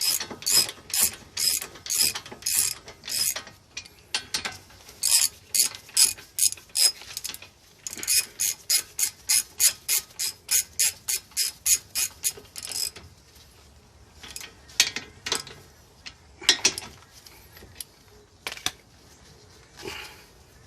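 Ratchet wrench clicking in quick runs, about three to four clicks a second with short pauses between, as a bolt on the brake caliper is tightened. After about thirteen seconds only a few scattered clicks and knocks remain.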